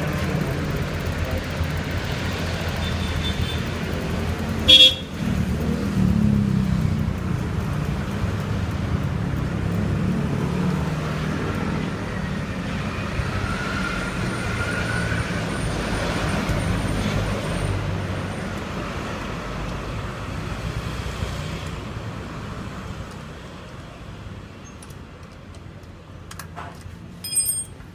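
Road traffic going past: a steady low rumble of vehicle engines, with a short vehicle horn toot about five seconds in. The rumble dies down in the last few seconds, and a brief sharp sound comes just before the end.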